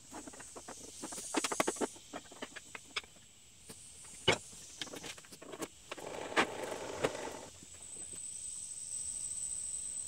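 Sawn wooden strips knocking and clattering against each other and the metal saw table as they are picked up and stacked, in a quick cluster of clicks and then single knocks, the loudest about four seconds in. From about eight seconds in a steady high-pitched whine sets in.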